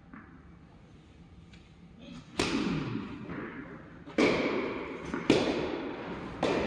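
Tennis balls struck by rackets in a rally: four sharp hits, the first about two seconds in and the rest about a second apart, each followed by an echoing tail.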